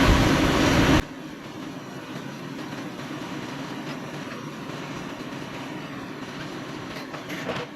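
Sawmill machinery running loudly, which stops abruptly about a second in and leaves a much quieter steady hum, with a brief louder clatter near the end.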